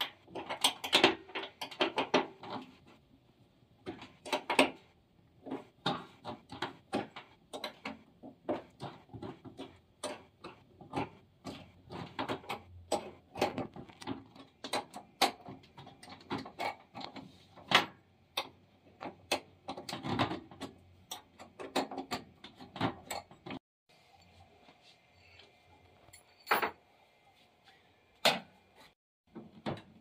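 Irregular clicks, taps and rattles of hands handling metal transport bolts and plastic caps at the back of a washing machine. It turns quieter about three-quarters of the way through, leaving a faint steady hum and a few sharp clicks.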